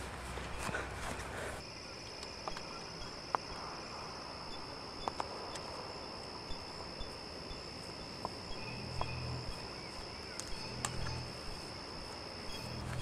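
Faint outdoor field ambience: a steady high-pitched insect trill, with scattered small clicks and rustles.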